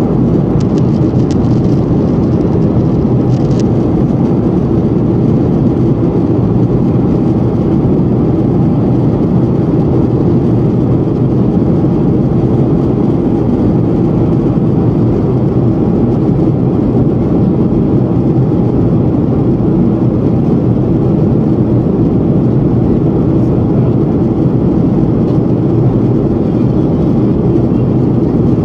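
Steady jet airliner cabin noise in flight: an even, loud rumble of the engines and rushing air, heard from a seat beside the wing.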